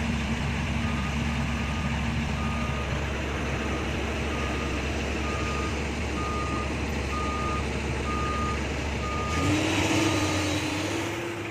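Dump truck reversing alarm beeping about once a second over the steady running of diesel truck engines. Near the end an engine note rises as a truck revs up.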